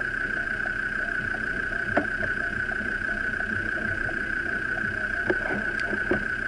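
Off-road vehicle's engine running at low speed, heard close under the bonnet, with a steady high whine over it and a few sharp knocks about two seconds in and near the end.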